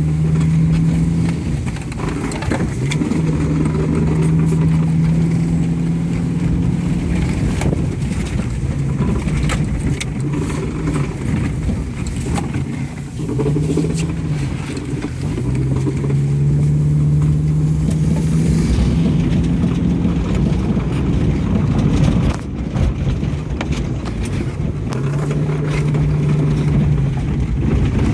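1997 Subaru Impreza's flat-four engine under hard driving, heard from inside the cabin: its note climbs and holds, then drops at each shift or lift, several times over. Tyre and gravel noise run underneath, with scattered clicks and knocks.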